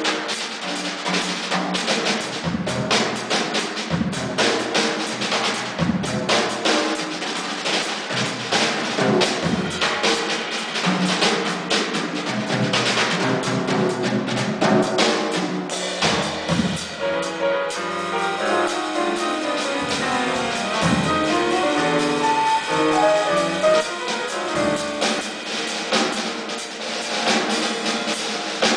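Drum kit played live in a busy jazz style, with snare, tom and bass drum strikes. A little past the middle, quick runs of pitched notes join in while the drumming goes on.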